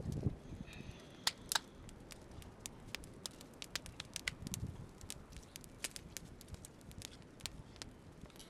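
Small open fire of dry twigs and branches crackling, with irregular sharp pops and snaps.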